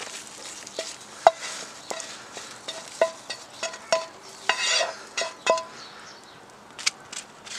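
Slotted spatula scraping and knocking scrambled egg out of a metal frying pan onto a paper plate: about ten sharp knocks, each making the pan ring briefly, with a longer scrape near the middle. The loudest knock comes about a second in.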